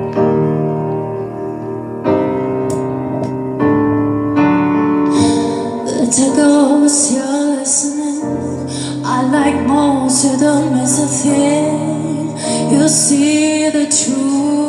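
Piano music playing held chords, with a woman's voice singing a melody over it from about five seconds in.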